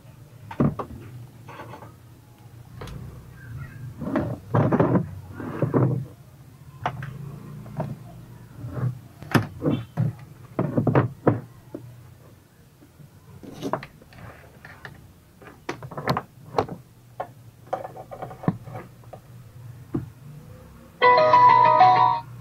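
Irregular knocks, clicks and thuds from a multimedia speaker's amplifier board being handled and fitted into its wooden cabinet. Near the end comes a loud burst of music, about a second long.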